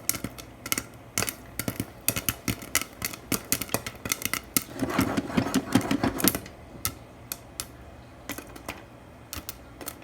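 Popcorn kernels popping in a hot frying pan: quick, irregular pops, crowding into a louder burst of crackling about five seconds in, then thinning to scattered pops near the end as the batch nears done.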